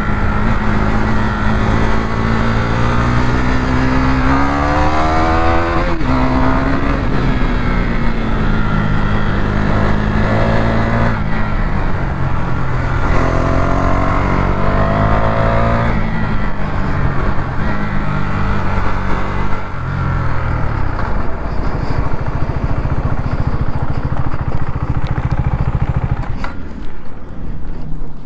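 KTM 390 single-cylinder motorcycle engine under hard acceleration, with wind rush. Its pitch climbs through the revs, drops at a gear change about six seconds in, climbs again, then settles and eases off near the end.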